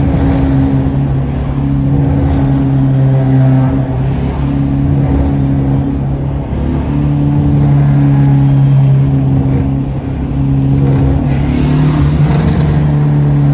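Dodge Neon SRT-4's turbocharged four-cylinder engine and road noise heard from inside the cabin while cruising, a steady drone whose pitch steps briefly a few times, with short hisses every couple of seconds.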